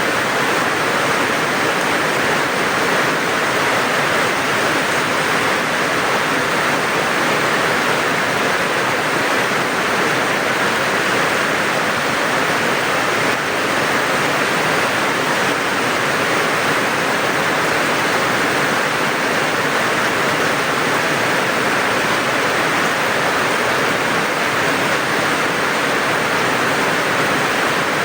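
Steady heavy rain: a dense, even hiss of falling water with no single drops or gaps standing out.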